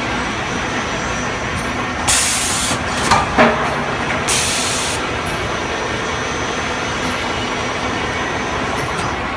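Spindleless veneer peeling lathe running with a steady mechanical noise. About two seconds in and again about four seconds in, it lets out a short burst of hissing, and a brief falling squeal sounds between the two bursts.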